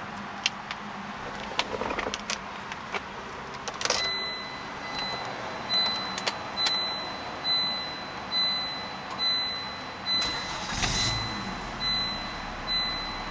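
Keys clicking and jangling at the ignition of a 1999 Volvo S70. From about four seconds in, the car's warning chime dings steadily, a little faster than once a second. Near the end the engine cranks briefly and starts, settling to an idle while the chime keeps going.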